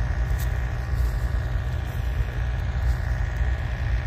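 Steady low rumble of an idling engine, with a faint steady whine above it.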